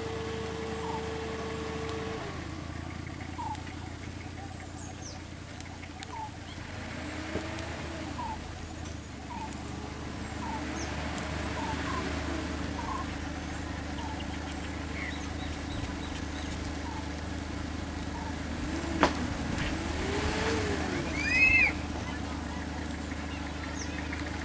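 Vehicle engines idling in a steady low hum, with short chirps repeating about once a second. Near the end come a sharp click and then a brief louder call.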